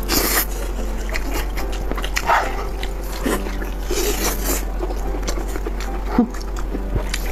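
Close-miked mukbang eating sounds: two people slurping and sucking stringy filling out of stuffed meat balls in chili sauce, with wet chewing and mouth clicks. There are sharp slurps near the start, about two seconds in and about four seconds in, and short hummed "mm" sounds between them.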